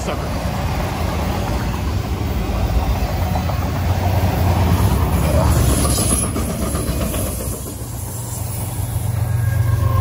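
Freight train of autorack cars rolling past at close range, with a steady rumble and clatter of wheels on the rails. Near the end the hum of a mid-train GE ES44AH diesel locomotive (a distributed-power unit) grows louder as it comes alongside.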